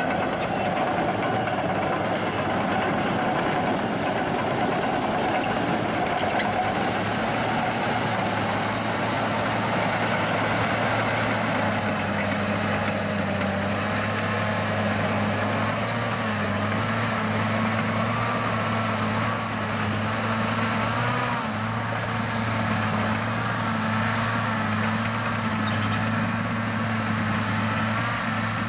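Caterpillar 963C track loader working, its diesel engine running steadily under load as it pushes dirt with its bucket. A wavering, higher whine runs over the engine from about halfway through.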